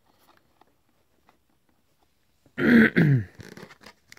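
A man makes a short wordless vocal sound, clearing his throat or grunting, about two and a half seconds in; it falls in pitch and is the loudest thing here. Before it there are only a few faint clicks of handling.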